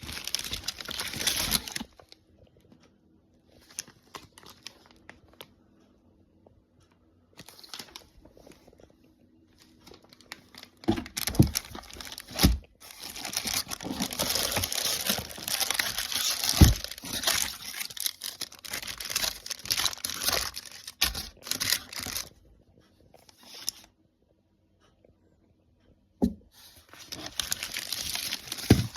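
Packaging crinkling and tearing in irregular bursts, with a long stretch of rustling in the middle and a few dull knocks, as boxes of fireworks are handled.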